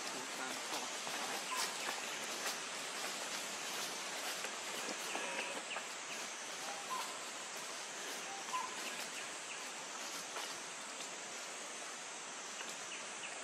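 Outdoor ambience among trees: a steady high hiss, with a few short, faint chirps scattered through it and some dry-leaf crackles in the first few seconds.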